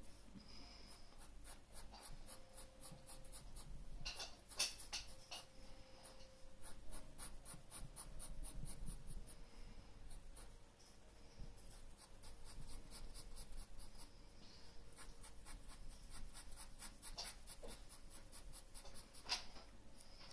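Pencil scratching on drawing paper in rapid, short repeated strokes, faint.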